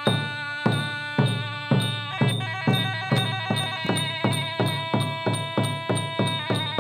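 Traditional Khmer pinpeat ensemble music: steady drum strokes that quicken from about two to about three a second, under held melodic tones.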